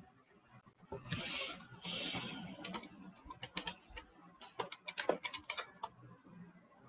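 Two short rustling hisses about a second in, then a run of irregular clicks of typing on a computer keyboard, heard over a video-call microphone.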